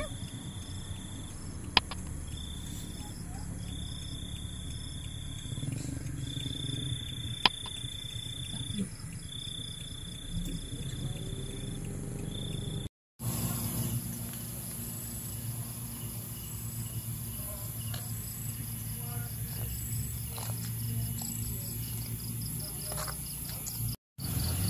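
Night insects trilling: a steady high-pitched trill in repeated stretches of about a second, over a low background rumble, with two sharp clicks in the first half. After a brief break about halfway, short high chirps repeat about once a second.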